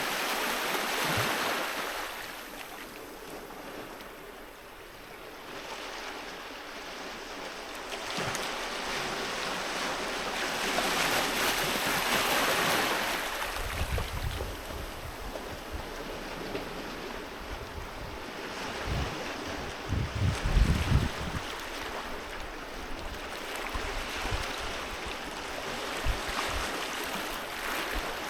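Sea waves breaking on a beach: the surf rises and falls in slow surges, several times over. Low gusts of wind buffet the microphone now and then.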